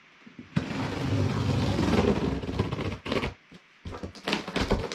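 Cardboard shipping box being cut open with a knife: a scraping, ripping sound along the tape and cardboard for about two seconds, then after a short pause a few quick scrapes and knocks.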